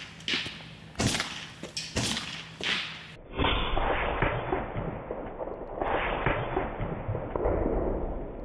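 Shots from an Evanix Viper .30 caliber PCP air pistol hitting soda cans: several sharp cracks in the first three seconds. These are followed by several seconds of duller, muffled noise.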